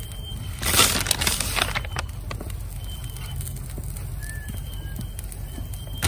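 A plastic bag of shredded cheese crinkling in a loud burst about a second in, over a steady low rumble.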